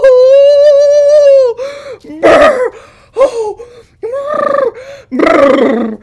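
A man's exaggerated wordless vocal sounds. First comes one long held high "ooh" of about a second and a half, then a string of short gasps and exclamations. Near the end are fluttering, shivering "brrr" sounds of being cold.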